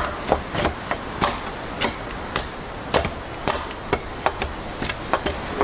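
A tool striking wood again and again: sharp, irregular knocks, two or three a second.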